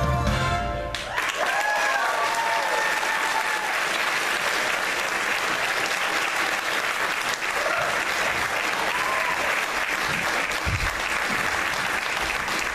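Theatre audience applauding, with a few whoops, as a song's last note cuts off about a second in.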